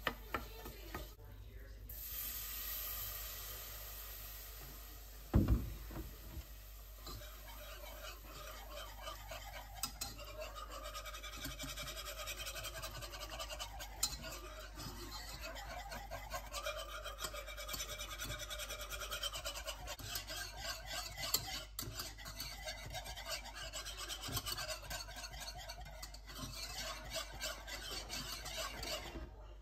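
A metal balloon whisk beating a milky sauce in a saucepan, in quick, steady scraping strokes against the pan for most of the time. A single thump about five seconds in.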